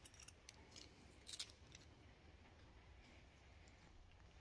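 Near silence with a few faint metallic clicks, the most noticeable about a second and a half in: a seal pick working against the steel gland of a hydraulic cylinder while prying out an old seal.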